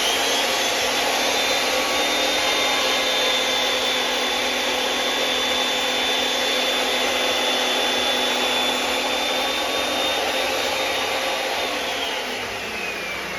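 Makita 2012 12-inch lunchbox planer, fitted with new sharp knives, running: a steady high motor whine that climbs to full speed in the first second, then falls in pitch near the end as the machine winds down.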